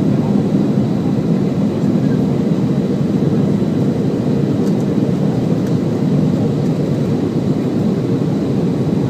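Steady cabin noise inside a Boeing 737-800 descending to land: an even low rush of airflow and the CFM56-7B engines, with a faint thin steady tone above it.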